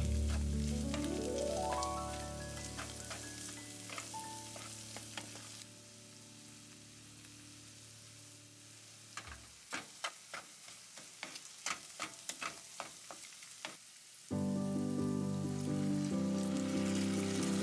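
Minced meat and powdered spices sizzling in a frying pan while a wooden spatula stirs, scraping and knocking against the pan in a quick run of clicks. Background music plays over the first few seconds and comes back in loudly about three-quarters of the way through.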